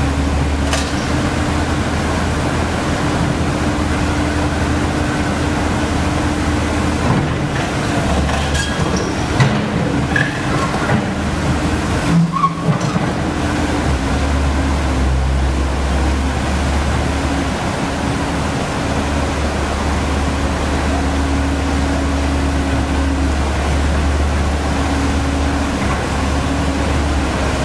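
Komatsu PC130F excavator's diesel engine running steadily as it works its hydraulic boom and bucket, over the steady rush of water pouring across a weir. The engine note drops away for a few seconds around the middle, where a few knocks and clatters are heard.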